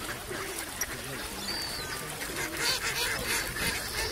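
A crowded flock of mallards and swans on open water, many birds calling at once in a steady jumble of overlapping short calls.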